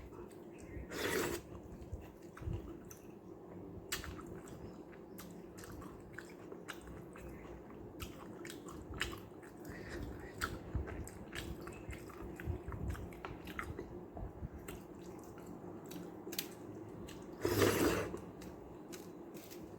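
Close-up chewing and wet mouth sounds of a person eating rice mixed with sambar: many short smacking clicks throughout, with two louder, longer wet noises about a second in and near the end.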